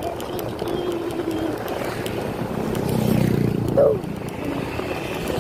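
Motorcycle engine running with road and wind noise during a ride. The engine grows louder about two and a half seconds in, and a brief higher-pitched sound near four seconds is the loudest moment.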